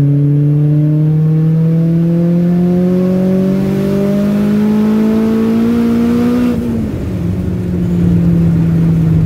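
Turbocharged Honda Prelude H22 VTEC four-cylinder engine under hard acceleration, heard from inside the cabin: its note climbs steadily in pitch for about six and a half seconds, then drops quickly and holds steady at a lower pitch.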